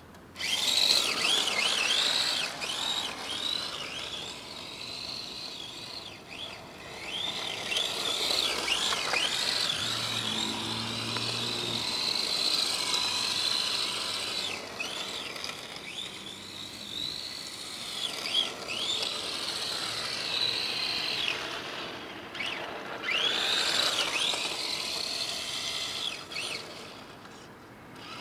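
Electric motor and gears of a Tamiya TT-01E drift RC car whining, rising and falling in pitch again and again as the throttle is worked, over a hiss of the tyres sliding on asphalt, with brief lulls where it drops off.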